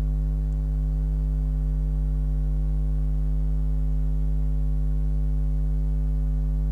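Steady electrical mains hum: a loud, unchanging low buzz with no other sound standing out.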